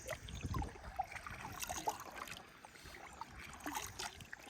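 Kayak being paddled: water splashing, trickling and dripping around the hull and paddle, with scattered small clicks and knocks.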